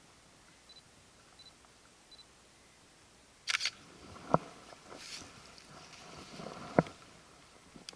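Handling noise from a handheld camera: rustling and rubbing against the microphone starts about three and a half seconds in, with two sharp knocks, the louder one near the end. Before that there is near silence with three faint, short high pips.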